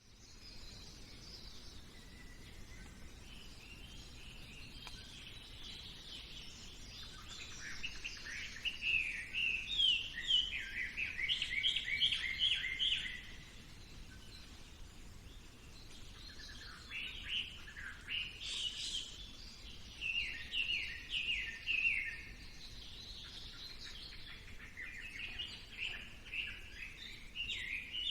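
Birds singing: stretches of quick, repeated high chirping notes come in about eight seconds in, again around seventeen seconds and near the end, over a faint steady outdoor hiss.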